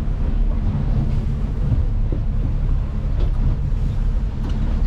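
Boat engine running steadily under way, a constant low rumble, heard from inside the boat's cabin.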